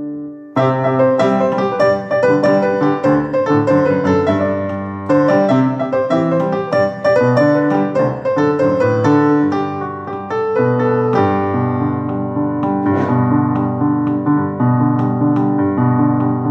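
Solo keyboard with a piano sound playing Guatemalan folk melodies: melody over sustained chords, a held chord giving way to a fuller, brighter passage about half a second in.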